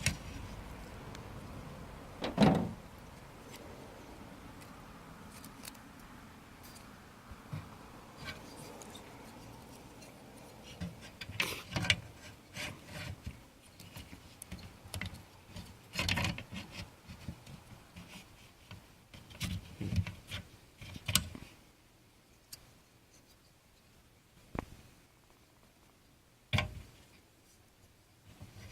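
Scattered plastic and metal clicks, knocks and rubbing from a windshield wiper blade being worked onto its wiper arm clips, a few sharper knocks standing out among the smaller handling noises.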